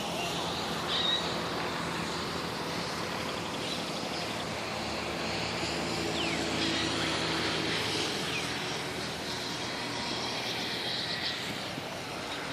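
City ambience: a steady rumble of distant traffic with a low engine hum, and a few short bird chirps about a second in, midway, and near the end.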